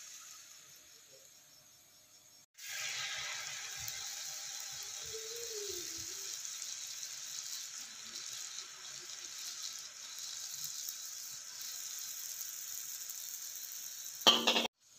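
Hot cooking oil sizzling steadily as a batter-coated metal rose-cookie (kuih ros) mould fries in it. The sizzle starts suddenly a few seconds in and ends with a brief louder burst before cutting off.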